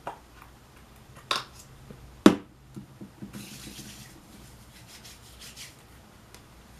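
Palms rubbing lotion together and over the face with a soft hissing friction. Two sharp clicks about a second apart come first, the second the louder, as the plastic lotion bottle is handled.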